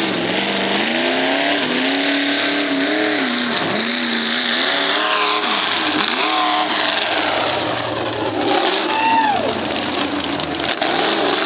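Lifted 4x4 mud-bog truck's engine revving hard through the mud pit, its pitch rising and falling with the throttle. It passes close by near the end.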